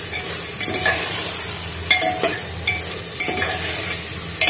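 Paneer cubes and peas sizzling in oil in a pressure cooker while a perforated metal ladle stirs them, clinking and scraping against the pot several times.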